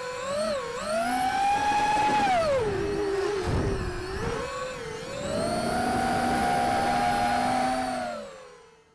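Racing quadcopter's four EMAX RS2205 2300kv brushless motors spinning DAL T5045BN tri-blade props, heard as a whine that rises and falls with the throttle. The pitch climbs and holds, drops low a few seconds in, then climbs again and holds before falling away and fading out near the end. A brief low rumble comes about three and a half seconds in.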